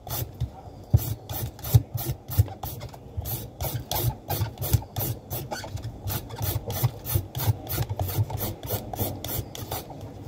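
Julienne peeler scraping down a peeled green papaya, shaving it into long shreds. A quick, even run of rasping strokes, about three or four a second.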